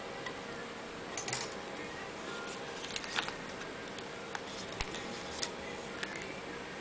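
Scattered light clicks and taps from a touchscreen mobile phone being handled, over a steady hiss; the two loudest come about a second in and about three seconds in.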